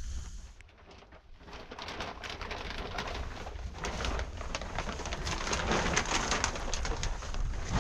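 Rain pattering steadily on a surface, a dense crackle of small drops that fades briefly about a second in and then builds up louder again.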